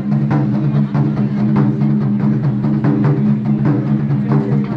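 Japanese taiko drums being played: a quick, continuous run of strikes over a steady low ringing from the drum heads.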